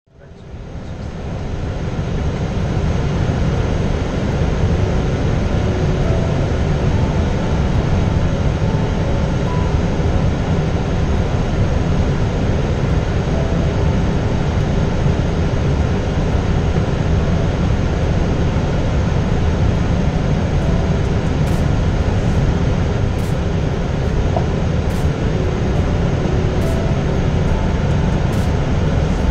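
Steady flight-deck noise of an Airbus A320 on approach: a constant rush of airflow and engine noise, fading in over the first couple of seconds.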